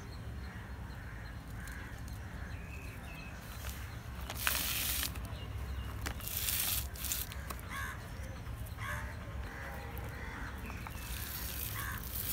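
A bird calling repeatedly in short harsh calls, over a steady low rumble. Brief rustles of a plastic grow bag and leaves come as hands handle a potted rose plant, loudest about four and a half seconds in and again near seven seconds.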